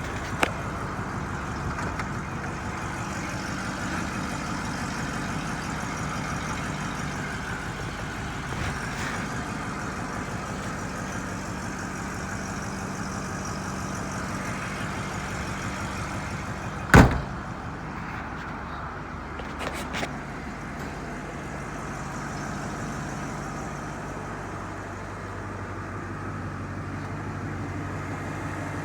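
A 1964½ Ford Mustang's 260 V8 idling steadily. About seventeen seconds in there is a single loud thump, and a few light clicks follow a few seconds later.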